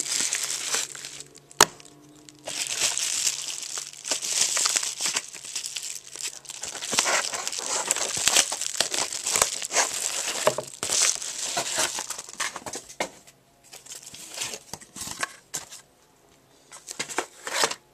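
A paper shipping package being torn open by hand: crinkling, crumpling and tearing paper with small handling clicks, easing off briefly a couple of times near the end.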